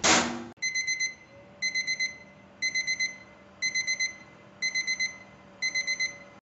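A loud knock, then an electronic kitchen alarm beeping in quick groups of four, one group each second, six times over, cutting off suddenly near the end.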